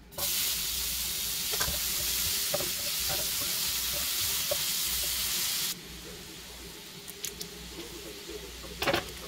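Chopped onion sizzling in hot oil in a nonstick frying pan, starting loud the moment it hits the pan. A little past halfway the sizzle drops suddenly to a quieter level, with light taps of a utensil stirring in the pan and a louder knock near the end.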